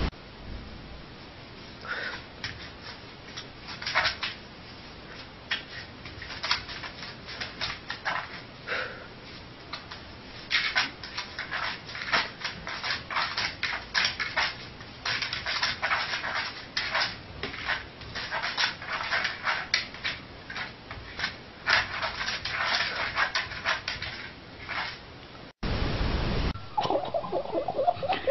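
A sleeping dog's quick, clicking snuffles, coming in clusters that grow densest through the middle, with a short wavering whimper near the end.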